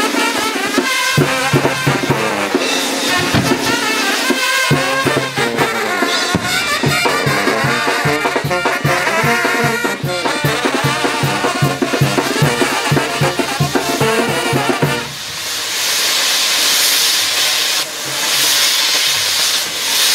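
Brass band music with a steady drum beat. About three-quarters of the way through, the beat drops out and a steady hiss of burning castillo fireworks spraying sparks takes over.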